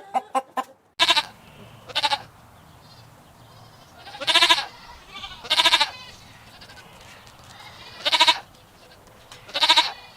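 Goat bleating repeatedly: six quavering bleats, two shorter, fainter ones early on, then four louder ones a second or more apart.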